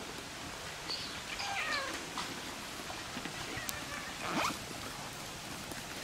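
A cat meowing: a short call that falls in pitch about a second and a half in, followed by a brief louder sound about four and a half seconds in.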